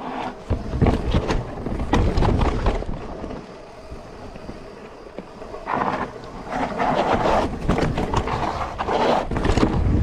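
Mountain bike rolling fast down a rock slab and a dirt trail: tyres rumbling and scrubbing over rock and dirt, with many sharp rattles and knocks from the bike over bumps. Heavy low rumbling comes in at the start and again near the end, and the riding is quieter for a couple of seconds in the middle.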